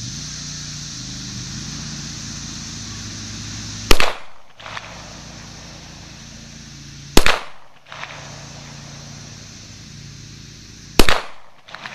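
Three pistol shots from a Springfield XDM 5.25 in .40 caliber, fired slowly, about three to four seconds apart, each a sharp crack that dies away quickly.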